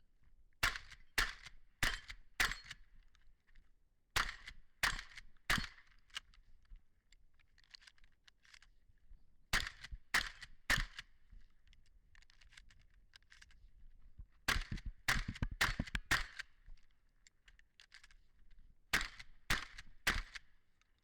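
Benelli Supernova pump-action shotgun fired in quick strings of three or four shots about half a second apart, with pauses of a few seconds between strings.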